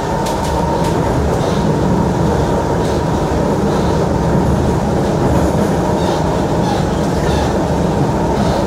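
Kawasaki Heavy Industries C151 metro train heard from inside the passenger car while running at steady speed: a continuous rumble of wheels on rail with a faint steady whine.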